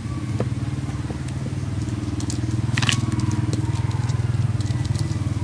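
A steady low engine-like hum with a fast even pulse, under light scraping and a few clicks of a metal spoon spreading butter over rice paper on a metal tray.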